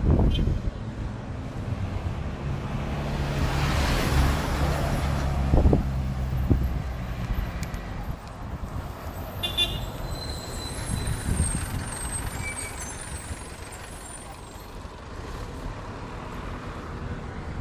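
Road traffic heard from a bicycle: a motor vehicle's engine runs loud and close from about two to seven seconds in, then fades to quieter traffic noise.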